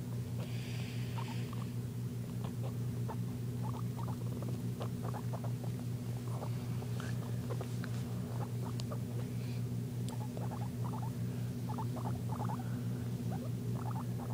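A pet guinea pig making many short, quick squeaks and clicks in irregular runs, with more of them in the second half. A steady low hum runs underneath.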